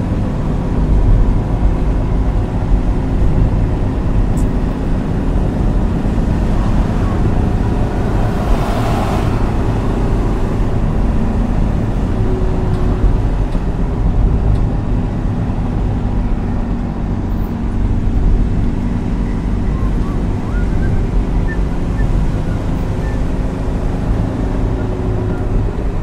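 Car engine and road noise heard from inside the cabin while driving: a steady low rumble with a faint engine hum, and a brief swell of rushing noise about nine seconds in.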